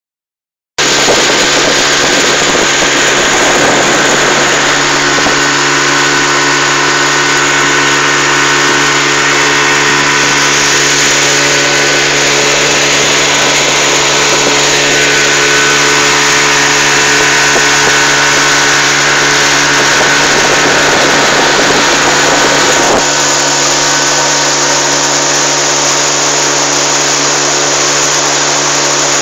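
Motorboat engine running steadily at speed, with a constant rushing hiss of water churning past the hull. It starts abruptly about a second in, and its note shifts slightly near the end.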